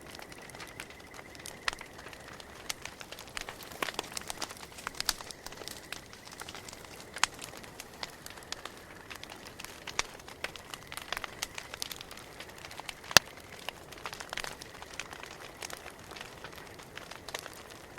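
Campfire crackling, with irregular sharp pops and snaps over a low hiss and one much louder pop about two-thirds of the way through.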